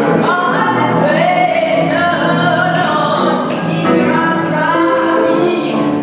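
Gospel choir of mixed men's and women's voices singing in harmony, several sustained sung notes changing every second or so.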